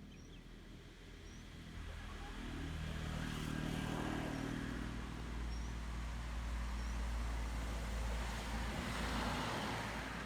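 A vehicle engine running, growing louder about two seconds in and staying strong, with a rush of noise swelling near the end.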